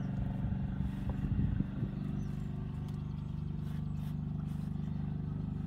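Boat engine running steadily with an even, rapid pulse, a few uneven knocks breaking in during the first two seconds.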